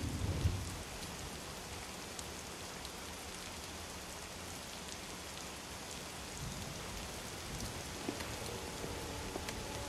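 Steady rain falling, an even hiss, with a brief low thump in the first second. Faint musical tones come in near the end.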